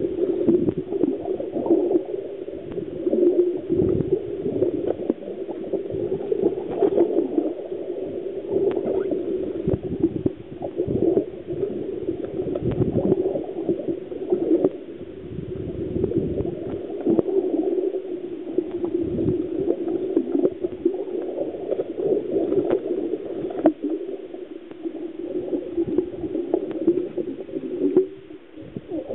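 Muffled underwater noise heard through a submerged camera: a constant churning gurgle that swells and fades, with scattered short knocks.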